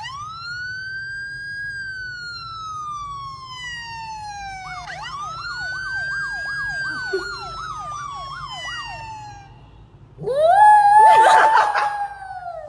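Siren wailing: a tone that rises quickly and sinks slowly. A second wail follows with a fast warble on top. About ten seconds in comes a louder, wavering wail that rises, holds and falls away at the end.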